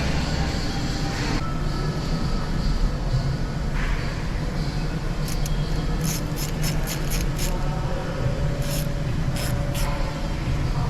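A machine running steadily with a low hum, with scattered short high clicks and ticks over it from about five seconds in.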